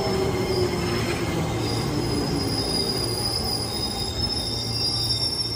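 Musashino Line electric commuter train running past close by, wheels rumbling on the rails, with a high-pitched wheel squeal growing stronger over the last couple of seconds.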